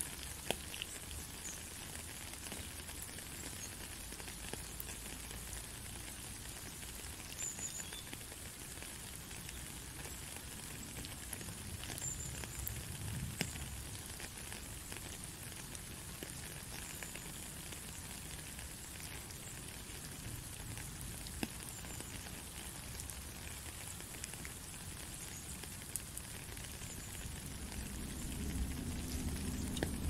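Steady rain falling, a fine even hiss with scattered drop ticks; a low rumble swells in near the end.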